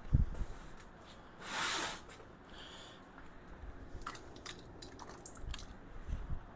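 Handling noises while unpacking a metal tool cart: a low thump just after the start, a brief rustling or scraping swell about a second and a half in, scattered light clicks, and another low thump near the end.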